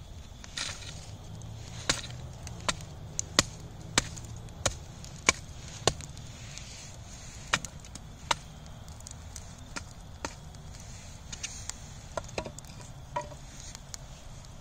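Wood fire burned down to glowing embers, crackling with sharp, irregular pops. The pops come thickest in the first half and thin out later.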